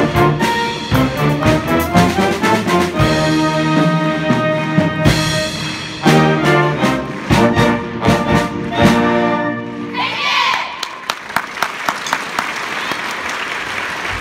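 School wind band of clarinets and saxophones playing the closing bars of a piece, ending on held chords, then applause breaks out about ten seconds in.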